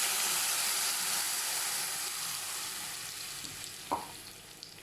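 Wet ground coconut-and-curd paste sizzling as it hits hot coconut oil in a pan; the sizzle fades steadily as the pan cools under the added mixture. A single short knock about four seconds in.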